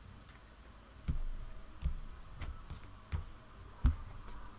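Deck of oracle cards being shuffled and handled by hand over a cloth-covered table: about five soft taps and knocks of the cards against each other and the table.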